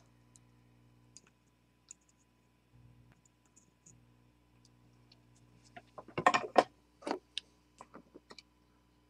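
Small metallic clicks and taps of hand tools against a metal bench vise, with a louder burst of clicking and rattling about six seconds in and a few more clicks after it. A faint steady hum runs underneath.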